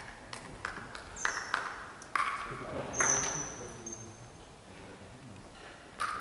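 Table tennis ball clicking as it bounces on a hard surface, a string of sharp pings in the first three seconds and two more near the end. There are short high squeaks from sports shoes on the hall floor in between.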